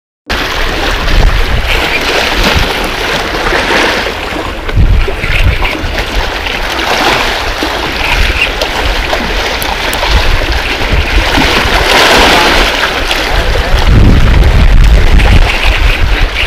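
Wind buffeting the microphone and sea waves washing against breakwater rocks, a heavy rumble and hiss that swells loudest near the end.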